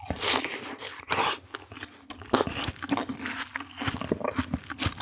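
Close-miked biting and chewing of juicy fruit: two loud, wet, crunchy bites, the second about a second in, then steady smacking chews.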